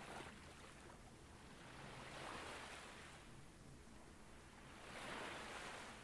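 Faint ocean waves washing on a shore, swelling twice, about two seconds in and again about five seconds in.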